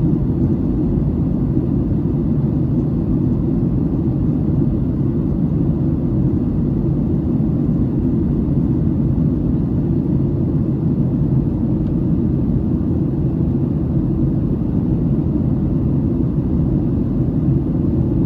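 Steady low rumble of a Boeing 737-800's CFM56 engines and airflow, heard inside the passenger cabin.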